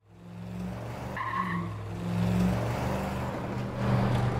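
Car engine running, fading in at the start, with a brief tire squeal a little over a second in.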